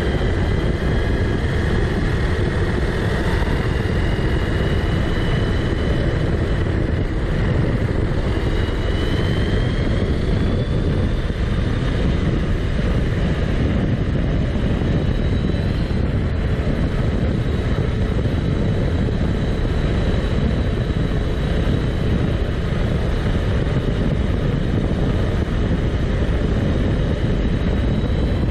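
Onboard sound of an Arrma Kraton 6S RC buggy running flat out on asphalt: a steady rush of wind and tyre noise, with the brushless motor's high whine rising in pitch as the car speeds up, then holding steady.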